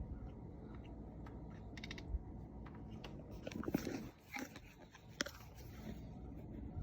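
Domestic cat chattering at something outside the window: a few short bursts of quick jaw clicks.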